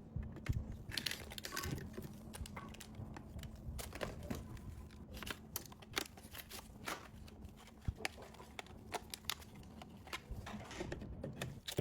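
Hands handling PC parts and packaging during assembly: irregular small clicks, taps and plastic rustling.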